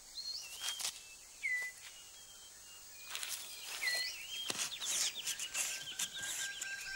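Rainforest ambience. Short whistled bird calls repeat, and dry rustles and snaps of leaves and twigs come in between them as a six-plumed bird of paradise clears leaf litter from its display court. In the second half a fast trilling bird call and a steady high tone join in.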